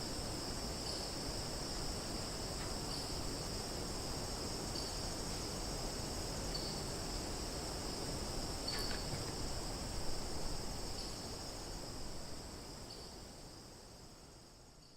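Summer forest ambience: a steady, high-pitched insect chorus with a short chirp about every two seconds, fading out over the last few seconds.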